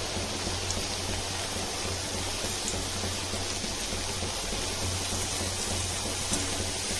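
Potato strips deep-frying in hot oil: a steady, even sizzle of bubbling oil.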